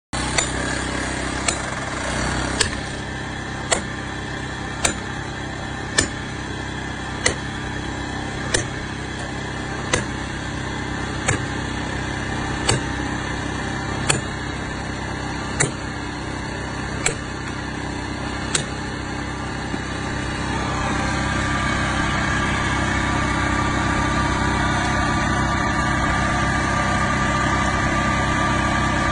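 Sledgehammer striking steel plug-and-feather wedges set in drill holes in rock, about fifteen sharp metallic blows roughly one every second and a half, splitting the rock open. A steady engine runs underneath throughout and carries on, slightly louder, after the blows stop about two-thirds of the way in.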